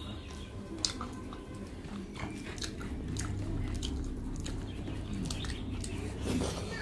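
Eating rice and chicken curry by hand: wet squishing as fingers mash a curry potato into rice on the plate, scattered small clicks, and chewing and mouth sounds, with a sharp click about a second in.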